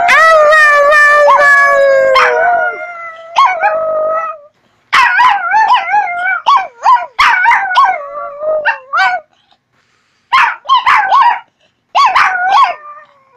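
Small dog howling: one long drawn-out note that sags slightly in pitch, then a run of shorter, wavering howls and yips broken by brief pauses.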